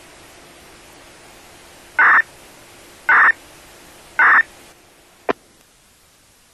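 Disaster-prevention radio receiver hissing with static, then three short identical beeps about a second apart. A sharp click follows as the receiver cuts off, and the hiss drops away.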